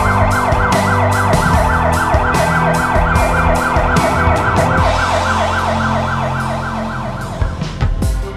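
Fire engine siren sounding a fast yelp, rising sweeps about three a second, over background music with a steady beat; the siren stops about seven seconds in and the music carries on.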